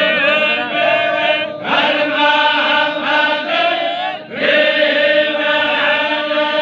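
Male voices chanting chogan, the Baloch devotional song. The notes are long, held and wavering, with a fresh phrase starting about one and a half seconds in and another just past four seconds.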